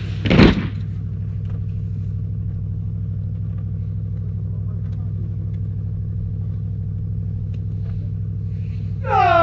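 A motorcycle engine running steadily, a low even hum with a fine pulse. There is a short loud burst just after the start, and near the end a loud horn-like tone sets in, dipping in pitch before holding steady.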